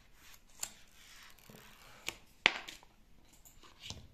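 Handling sounds from unboxing a new iPhone: the paper screen wrap rustling as it is pulled off, then a few sharp clicks and taps as the phone is lifted against the cardboard box. The loudest tap comes about two and a half seconds in.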